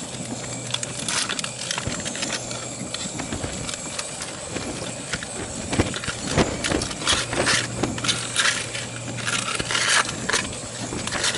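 Knife and fork clinking and scraping on a metal plate as roast beef and potatoes are carved, in many short irregular strokes. A steady low hum runs underneath.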